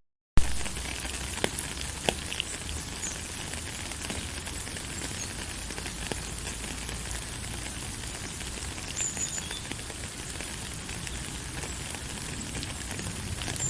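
Steady rain falling, an even hiss with scattered drop ticks. At the very start the sound cuts out for a moment and comes back with a sharp click.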